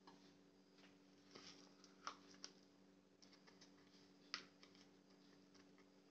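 Near silence: room tone with a faint steady hum and a few soft ticks.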